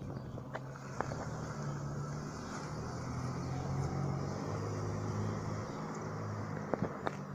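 Distant aircraft passing overhead: a steady low engine drone that drops a little in pitch midway, with a few sharp clicks about a second in and near the end.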